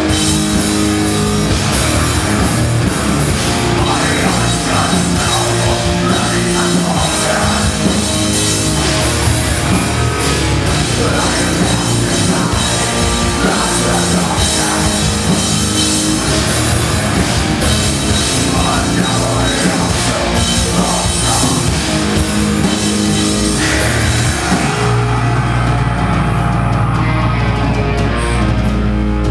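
Live rock band playing loud, with electric guitars and a drum kit driving hard. About 25 seconds in, the drums and cymbals drop out and held guitar notes ring on.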